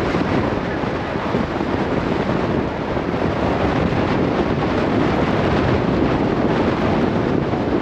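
Steady wind buffeting the microphone, a continuous rushing noise with no let-up.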